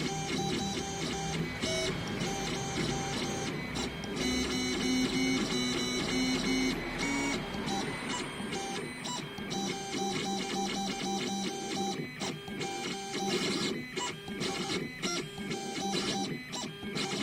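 A small CNC engraving machine's stepper motors whining as it engraves a metal pet ID tag, the pitch jumping to a new steady tone every second or so as the head changes direction, with short clicks between moves.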